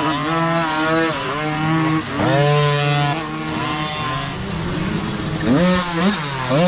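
Kids' micro dirt bike engines running and revving as the bikes ride past, the pitch rising and falling with the throttle. There is a sharp rev-up about two seconds in and several quick revs near the end.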